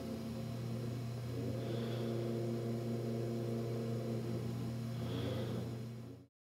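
A low steady droning hum with several held tones above it, cutting off abruptly near the end.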